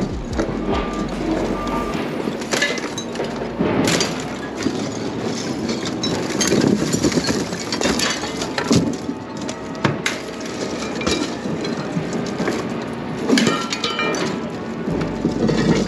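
Rusty scrap metal being pulled from a pickup bed and thrown onto a scrap pile: an irregular run of clanks, knocks and rattles.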